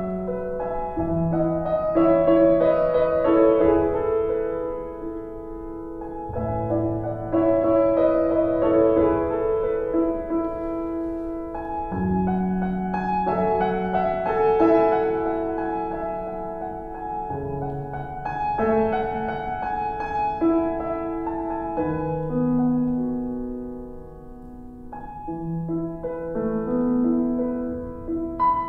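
Slow instrumental piano music.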